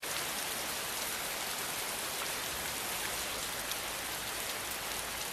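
Steady, even hiss of noise with faint scattered ticks.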